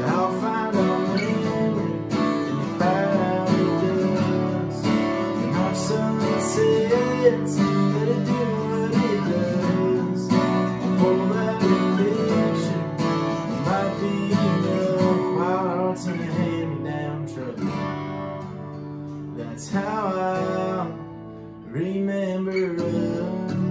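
Music: acoustic guitars playing a country song, with strummed chords and a melody line moving over them.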